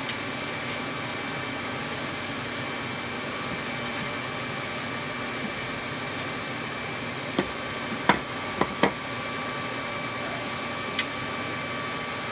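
Coal-forge air blower running with a steady whir and hum. Five sharp hammer blows on steel at the anvil cut through it: four in quick succession about seven to nine seconds in, and one more near the end.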